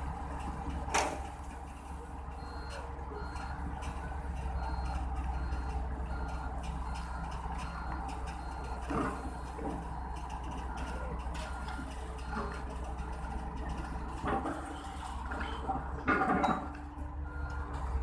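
Heavy construction machinery's diesel engine running steadily, with a warning beeper sounding in short repeated beeps and a few separate sharp metallic clanks.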